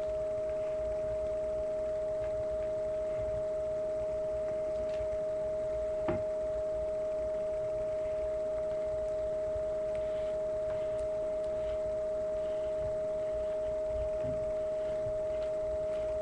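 Steady hum at one unchanging pitch, with one light tap about six seconds in.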